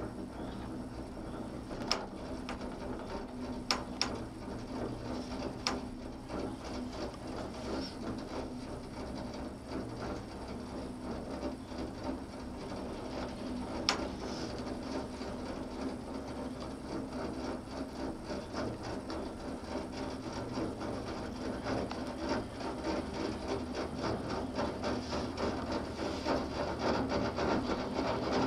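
Poma eight-seat detachable gondola cabin running along its haul rope, heard from inside the cabin: a steady hum with rattling and a few sharp creaks and clicks. The rattle grows louder near the end as the cabin reaches a line tower.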